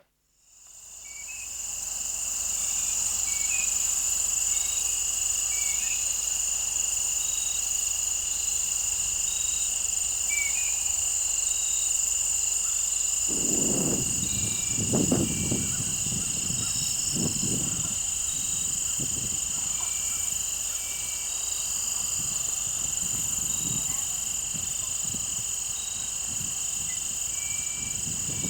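A steady, high-pitched chorus of insects such as crickets, with short chirps scattered through it.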